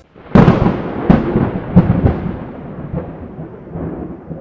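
A loud rumbling crash with several sharp cracks, fading slowly and then cut off suddenly, like a thunder or explosion sound effect.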